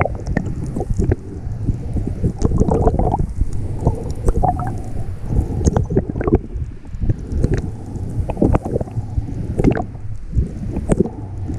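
Muffled underwater water noise, a steady low rumble and sloshing, picked up by a GoPro on a full-face snorkel mask, with irregular clicks and crackles throughout.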